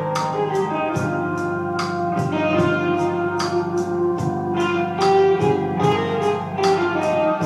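Electric guitar playing a melodic line of held notes over a steady low part. A drumstick taps a beat alongside, about two sharp hits a second.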